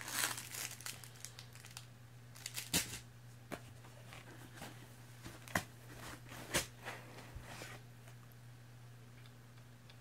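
Packaging being handled: crinkling and rustling as hands work a flashlight out of its foam-lined cardboard box, with a few short sharp knocks and clicks, the loudest about three, five and a half and six and a half seconds in.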